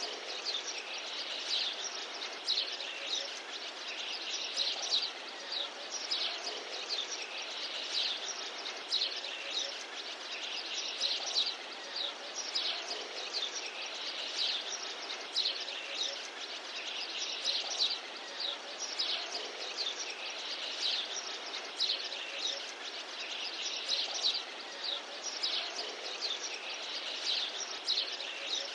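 Small birds chirping over a steady outdoor background hiss. The short, high chirps come again and again throughout.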